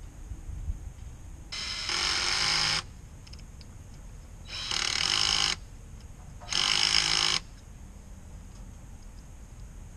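Cordless drill or driver running in three short bursts of about a second each, with a steady motor whine, driving screws into the wooden mailbox post's arm.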